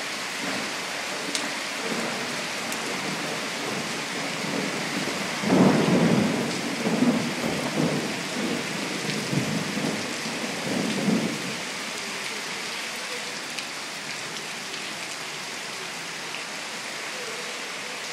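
Steady rain hissing, with a roll of thunder rumbling for about six seconds in the middle, starting suddenly and fading out unevenly.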